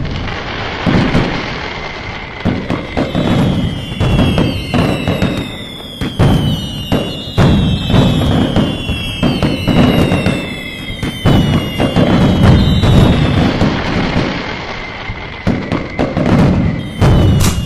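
Fireworks going off in a dense barrage: repeated sharp bangs and crackling, with several overlapping whistles that slide slowly down in pitch through the middle.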